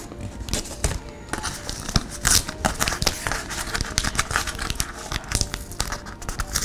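Plastic protective film and masking tape on a replacement laptop display's cardboard packing being handled and peeled, making a dense, irregular run of crinkling and small crackles.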